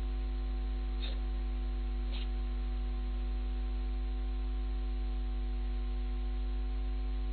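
Steady electrical hum: a low drone with several fainter steady tones above it over a light hiss, and two faint short ticks about one and two seconds in.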